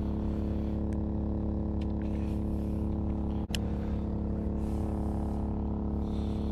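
Portable gasoline generator running steadily with an even engine drone, with a few light clicks over it, the sharpest about three and a half seconds in.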